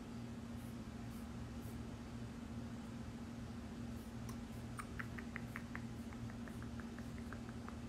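Quiet room with a steady low hum. About five seconds in, a quick run of light clicks starts, about four a second, and slowly fades.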